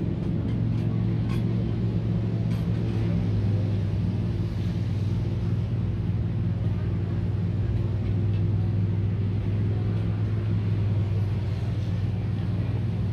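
A steady low hum with a constant pitch, unchanging throughout, with a few faint light clicks in the first few seconds.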